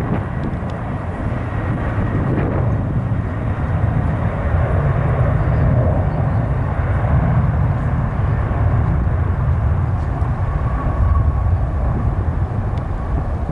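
Boeing 747-400's four jet engines at takeoff power: a loud, steady low rumble as the airliner rolls, lifts off and climbs away, growing a little louder a few seconds in.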